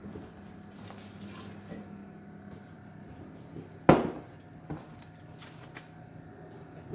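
A foil-lined metal cake pan set down on a kitchen counter with one sharp clank about four seconds in, among a few lighter knocks and handling sounds.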